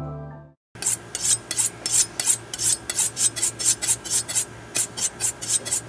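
Quick repeated scraping strokes, about four a second, starting about a second in after the music has faded out.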